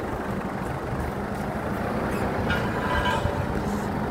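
Forklift engine running steadily close by, with a brief higher whine or squeal about two and a half seconds in.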